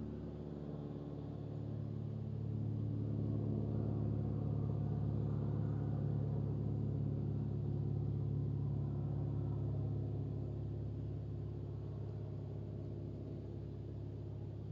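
Ambient background music: sustained low drone chords that swell a little louder in the middle, then ease back.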